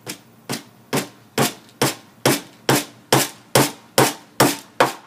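Hammer driving a nail into a birdhouse: twelve even blows, about two a second, the first few lighter and then steady.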